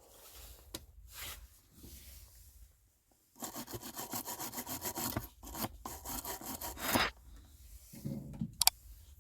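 A quick run of rasping, scraping strokes at several a second, lasting a few seconds with a short break midway.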